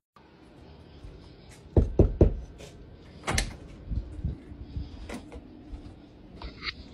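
A door being opened by its doorknob: three low thuds close together about two seconds in, then a sharp click of the latch and a few lighter knocks as the door moves.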